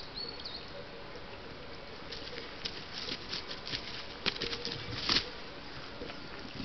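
Red deer stag wallowing in mud: scattered wet slaps and squelches as it rolls and swings its head and antlers, the loudest about four and five seconds in, over a steady hiss.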